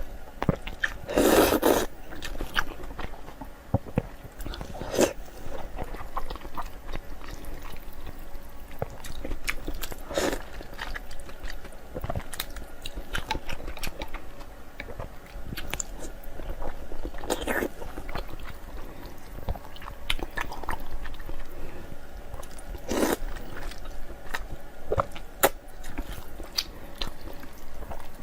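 A person chewing and biting food close to the microphone: many small wet mouth clicks and crunches, with a louder short bite or mouth sound every few seconds.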